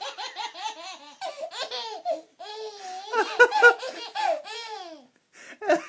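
Baby of about seven months laughing: a quick run of short, panting laugh pulses, then longer high-pitched laughs that rise and fall, and one short burst near the end.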